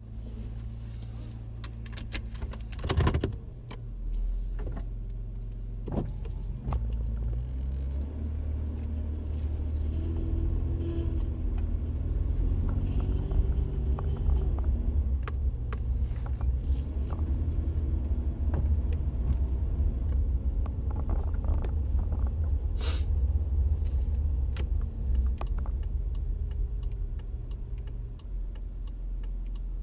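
2003 Nissan Frontier running with its steering being worked, giving the steering noise whose cause is unknown: a low hum that swells into a louder rumble about seven seconds in and eases near the end, with a couple of sharp clicks.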